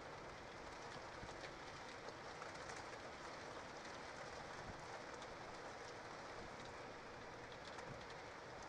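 Steady rain falling on the nest-box ledge, with scattered drops ticking.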